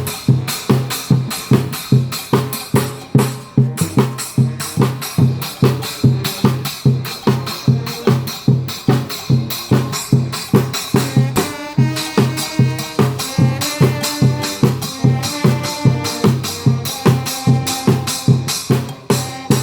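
Street brass band playing: percussion keeps a steady driving beat of a little over two strokes a second with shakers on top, and about halfway through horns come in with held melody notes over it.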